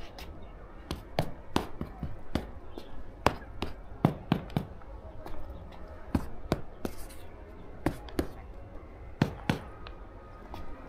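A series of sharp, irregular knocks or taps, many coming in quick pairs, over faint background voices.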